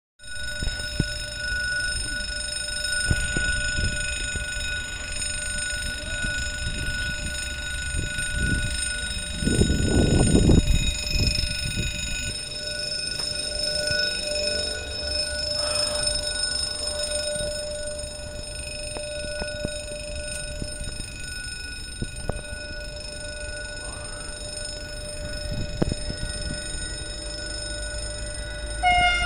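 Level crossing warning bell ringing continuously in steady tones. A low rumble on the microphone runs underneath, loudest about ten seconds in.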